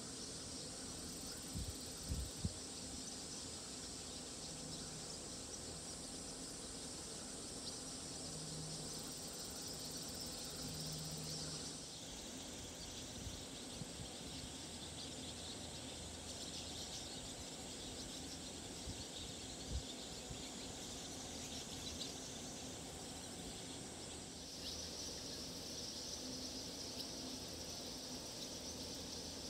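Evening chorus of insects such as crickets: a dense, steady high-pitched chirring that shifts abruptly twice. A few short low thumps about two seconds in and again near twenty seconds.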